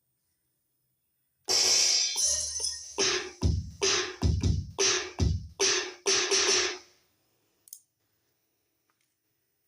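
Roland SPD-20X electronic percussion pad sounding its drum samples: a cymbal-like crash, then about a dozen quick drum hits over some five seconds, after which it stops. The unit is producing sound through its output.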